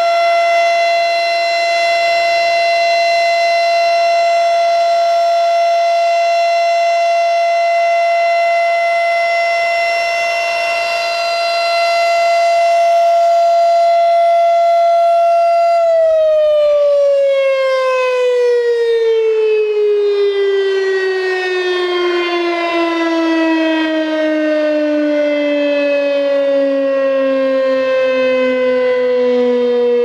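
Federal Signal Thunderbeam outdoor warning siren sounding a loud, steady tone; about halfway through its pitch starts to fall and keeps dropping as the siren winds down.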